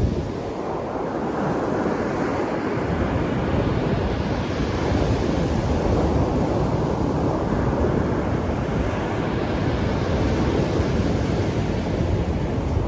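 Surf washing onto the beach with gusty wind buffeting the microphone, a steady rushing noise with a heavy low rumble.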